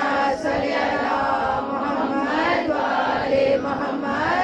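A crowd of voices chanting the salawat together in unison, a melodic devotional chant that rises and falls in pitch, answering a call to recite it aloud.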